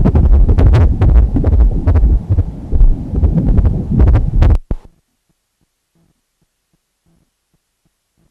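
Pulsed-wave Doppler ultrasound audio of a fetal heartbeat: fast, rhythmic whooshing pulses of blood flow. It cuts off abruptly about five seconds in, leaving near silence with a few faint ticks.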